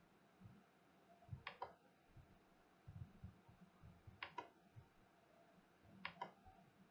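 Faint computer mouse button clicks, three times: one about a second and a half in, one about four seconds in and one near the end, each a quick press-and-release pair. Soft low thumps come in between.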